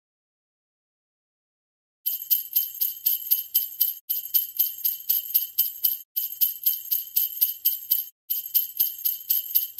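Silence for about two seconds, then jingle bells shaken in a steady rhythm, about four shakes a second, with a short break about every two seconds.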